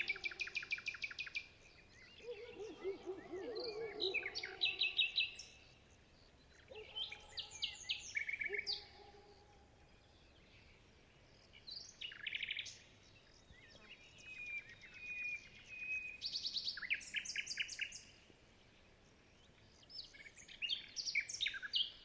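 Songbirds singing: short, bright phrases of rapid trilled notes, one every few seconds, with a lower wavering call about three seconds in.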